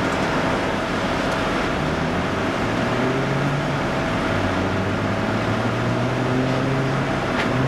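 Volvo hydraulic excavator's diesel engine running under load as it works its demolition arm, its low note rising and falling, over a steady whine.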